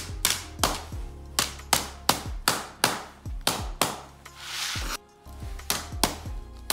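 Claw hammer tapping along the seams of interlocking plastic floor tiles laid on concrete, locking them together: sharp knocks about two a second, with a short break about two-thirds through. Background music plays underneath.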